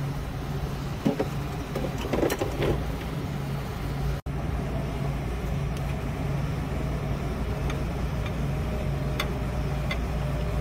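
Steady low hum of running rooftop refrigeration machinery, with a few light metallic clicks of hand tools on copper pipe about a second in and again near the end.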